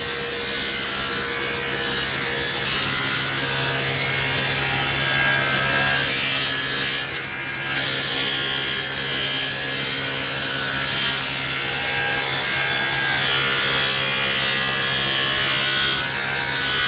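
Electric saw running steadily as it cuts through a solid surface artificial stone sheet: a constant low motor hum under a rasping cutting hiss.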